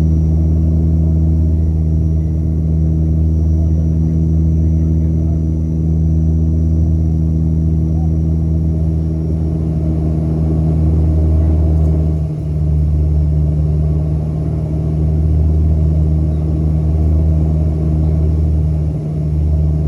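Twin turboprop engines and propellers of a Bombardier Q300 (Dash 8-300), heard inside the cabin, droning steadily with a deep, even hum. About twelve seconds in, some of the higher tones drop away and the sound eases briefly as engine power changes.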